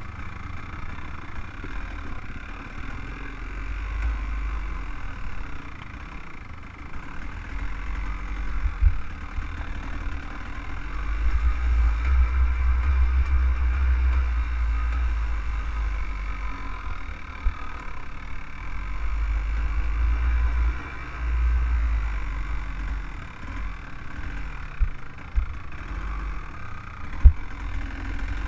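Off-road vehicle engine running while riding a rough dirt trail, with heavy wind or jolt rumble on the microphone that swells twice, and a few sharp knocks as it goes over bumps.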